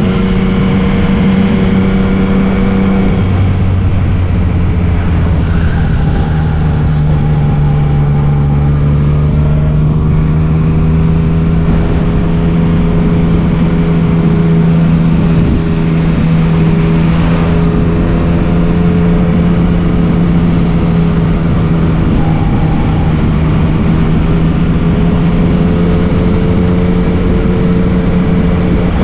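Yamaha MT-09's three-cylinder engine running steadily under way, its pitch dropping slightly about three seconds in and then holding nearly even, over a constant rush of wind.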